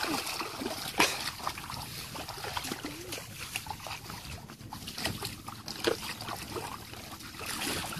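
Bare feet and hands splashing and sloshing in shallow muddy water, with scattered small clicks and a sharp knock about a second in.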